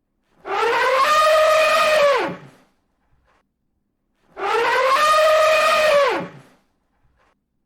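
Elephant trumpeting twice, the same call each time: a pitched call about two seconds long that rises a little, holds, then drops away sharply in pitch at the end, with silence between the calls.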